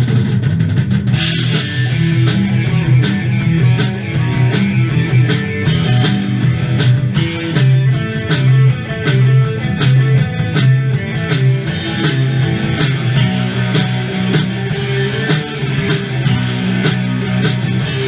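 Live rock band playing loud: electric guitars strumming over bass guitar and a drum kit, with no vocals.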